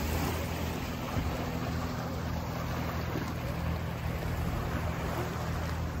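A motor engine running steadily with a low, even hum, over a constant wash of wind and sea noise.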